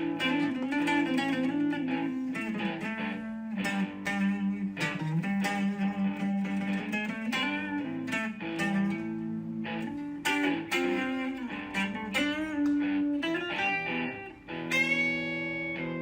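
Background music: a plucked electric guitar playing a melody over held chords.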